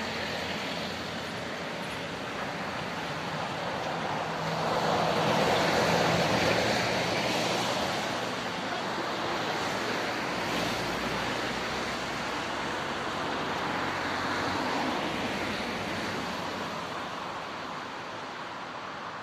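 Road traffic passing close by on wet asphalt: cars and a flatbed tow truck, their tyre hiss swelling and fading as each goes by, loudest about five to seven seconds in.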